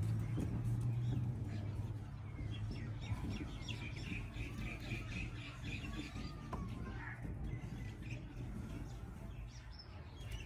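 Small birds chirping, with a quick run of high chirps in the middle, over a low steady hum that is strongest in the first second or two.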